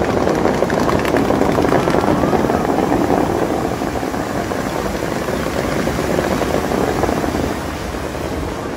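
Dubai Fountain's water jets rushing and spraying: a dense, steady roar of falling water that eases a little near the end.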